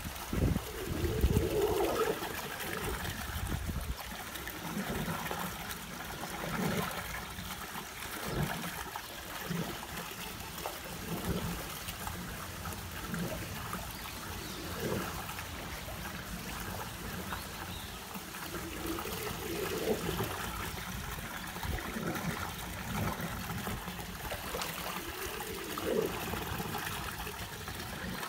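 Water trickling and running steadily in a pool.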